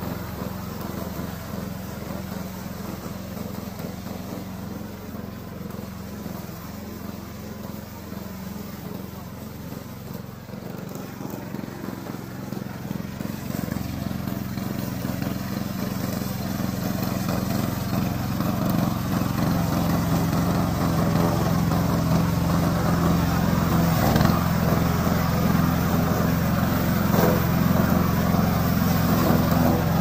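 Gasoline engine of a four-wheel-drive remote-control lawn mower running steadily as the mower drives through long grass, getting louder through the second half as it comes closer.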